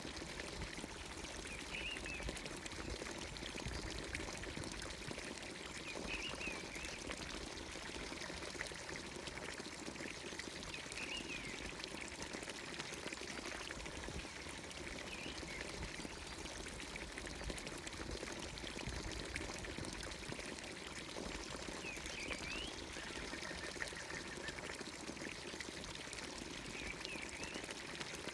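Water pouring steadily from a village fountain's spout into its trough. A bird gives a short chirp about every four to five seconds, six times in all.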